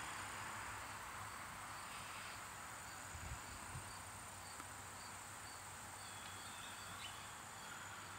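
Faint room tone: a steady low hum and a thin high whine, with faint, evenly spaced high ticks.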